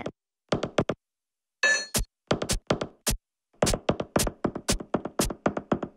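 Cartoon hammering and banging: short sharp knocks in quick irregular runs with brief pauses between them, and a short ringing tone about a second and a half in. It is the racket of a rocket being built with a hammer.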